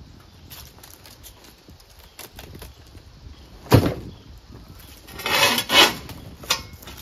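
A boxed snowblower set down off a metal hand truck onto an asphalt driveway: one heavy thud about four seconds in, then the hand truck scraping and rattling as it is pulled back from under the box, and a short clank near the end.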